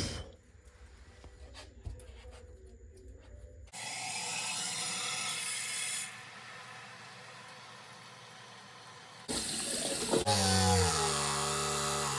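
Water running from a tap in a steady rush, louder for about two seconds and then quieter before it surges again. Near the end a humming tone comes in and steps down in pitch a few times.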